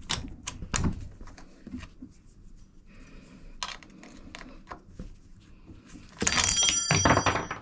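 Small metallic clicks and taps of hand work on a bicycle's control cable, then a louder rasping noise with a faint metallic ring for over a second near the end, as the cable is worked free.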